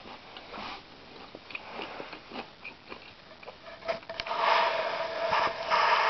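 Close-up sounds of a European hornet on a hard surface: faint scattered ticks and scratches as it walks and chews, then from about four seconds in a louder rustling noise with a steady hum.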